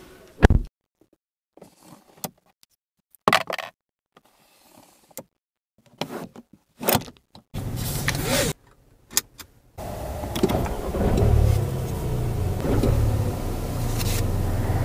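A few sharp clicks and knocks from the car's interior controls being handled, then the seatbelt webbing pulled out for about a second. From about ten seconds in, a small electric motor in the car runs with a steady low drone for around six seconds.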